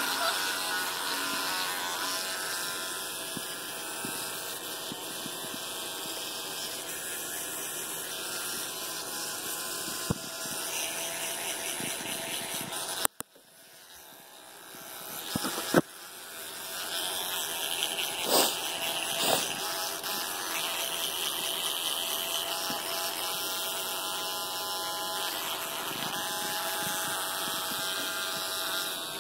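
Electric toothbrush buzzing steadily, worked by a capuchin monkey. It cuts out suddenly about halfway through and builds back up within a couple of seconds. A few sharp knocks come around the cutout.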